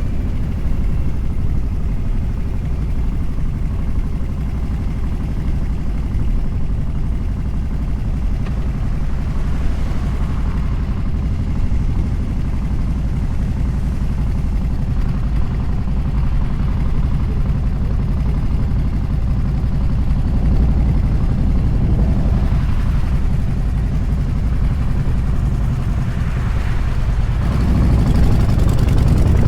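Motorcycle riding at highway speed: a steady low rush of wind over the microphone with the engine running underneath. Near the end the engine pitch rises as it speeds up.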